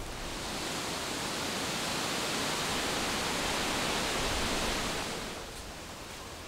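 Outdoor rushing noise that swells up over the first two seconds, holds, and fades about five seconds in, ending with a short sharp click.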